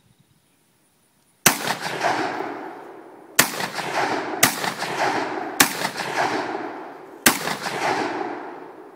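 Five shots from a Saiga 12 semi-automatic 12-gauge shotgun, fired in quick, uneven succession over about six seconds. Each blast is followed by a rolling echo. The pace shows the gun cycling on its own from shot to shot.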